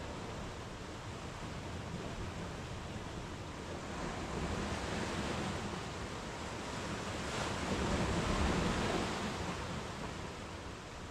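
Sea waves breaking and washing up a sandy beach: a steady hiss of surf that swells twice, loudest about eight seconds in.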